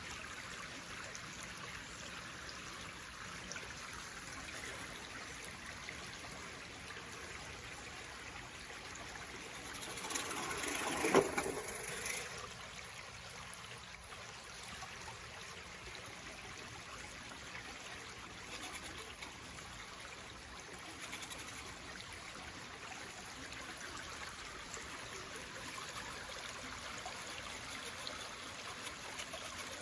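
Steady rushing of running water, like a small stream. About eleven seconds in, a louder, rougher burst rises for a couple of seconds and peaks in a sharp knock.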